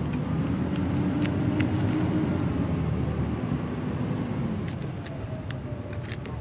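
An engine running steadily in the background, with a low hum that eases off about four and a half seconds in. Scattered sharp clicks and scrapes come from a knife cutting through the triggerfish's tough skin.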